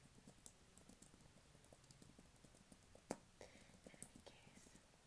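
Soft, irregular typing on a computer keyboard: scattered light key clicks, one clearly louder about three seconds in.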